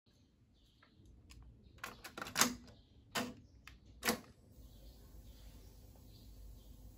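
Cassette deck being loaded: several clicks and clacks as a cassette goes into the holder and the door is shut, then a clunk from the play key about four seconds in. A faint steady tape hiss follows as the transport starts.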